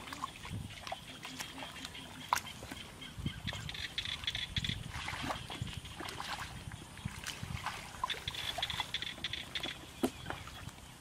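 Muddy water sloshing and splashing as people wade through a shallow ditch and grope in the mud with their hands for fish, with irregular wet slaps and squelches.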